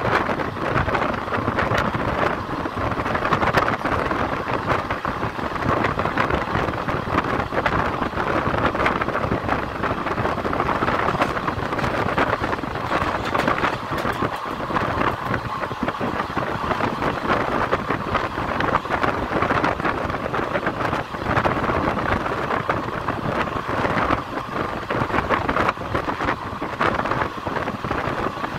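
Steady rushing noise of a moving electric-hauled passenger train heard from on board, wheels running on the rails mixed with wind buffeting the microphone.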